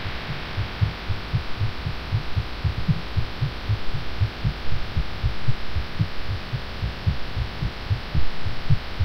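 A woman's heartbeat beating fast, a steady run of low pulses several times a second over a constant background hiss. It was recorded while she was sick and had taken cough medicine.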